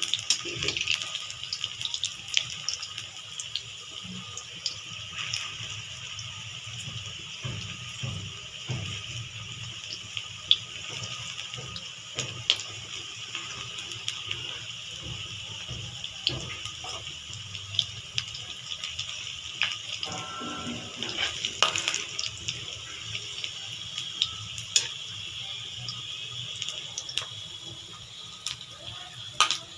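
Jackfruit kofta balls deep-frying in oil in a kadhai: a steady sizzle with scattered pops and crackles, and now and then the tap and scrape of a metal slotted spoon against the pan.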